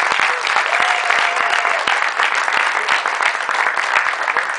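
Children and adults applauding, dense steady hand-clapping, in response to a team being announced in fourth place.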